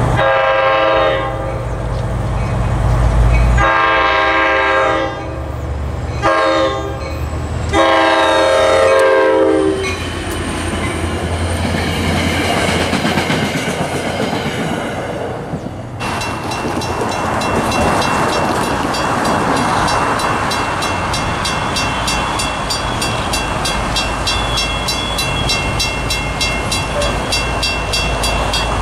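NJ Transit commuter train's multi-chime air horn sounding several long blasts over a low diesel drone, the last fading about nine seconds in, then the train rushing past with wheels clattering on the rails. About sixteen seconds in the sound changes abruptly to a steady rushing hiss with a faint high whine.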